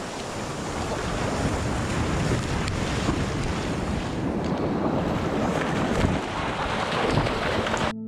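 Sea waves breaking and washing through shallow surf, with wind rumbling on the microphone.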